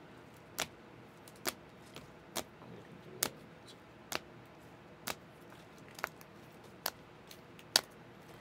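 Rigid plastic trading-card toploaders clicking against each other as cards in a stack are moved one at a time. There are about nine short, sharp clicks, roughly one a second, the loudest near the end.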